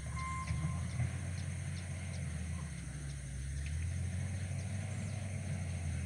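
Low, steady rumble of distant heavy machinery running, with a short electronic beep right at the start.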